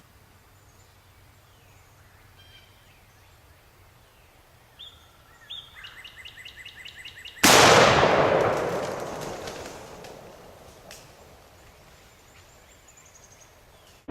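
A single shotgun blast about halfway through, sudden and loud, its echo dying away over several seconds. Just before it comes a short run of rapid rattling turkey calls.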